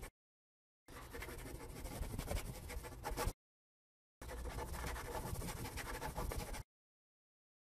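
Scratchy scribbling of a marker writing, in two stretches of about two and a half seconds each, with dead silence between and after.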